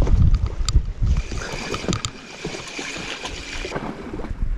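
Wind buffeting the microphone, then a steady whirr from a spinning reel as a hooked mackerel is wound in, cutting off suddenly near the end.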